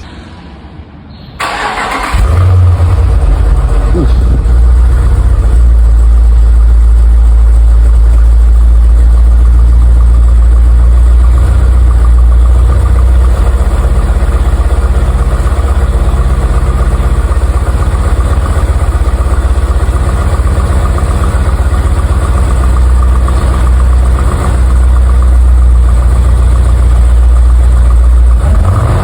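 A car engine cranked over and started about two seconds in, then idling steadily and loudly with a deep, low sound.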